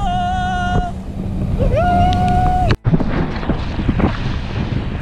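Wind buffeting the microphone over boat-engine and water noise, with two long, high, steady held tones in the first half. About three seconds in the sound breaks off for an instant and resumes rougher.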